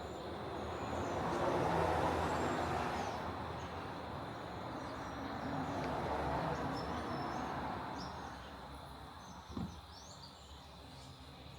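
Outdoor background noise that swells and fades twice, with faint bird chirps and one short knock near the end.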